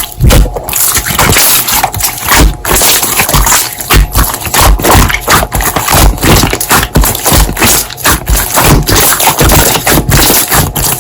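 Slime being squished and kneaded by hand, a dense run of irregular clicks and pops.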